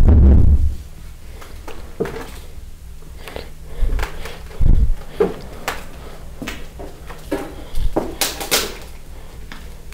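A heavy door banging shut with a deep thud, followed by scattered knocks and clicks and a second dull thump about five seconds in.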